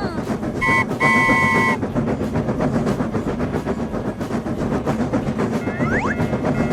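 Train sound effect: a steady rumble with a rapid clickety-clack of wheels on rail joints. About half a second in, a two-tone horn sounds twice, a short blast and then a longer one. Near the end a rising whistle-like glide is heard.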